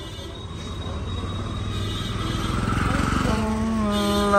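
Street traffic: a vehicle engine running and growing louder as it comes closer, then a horn sounding about three seconds in and held for over a second.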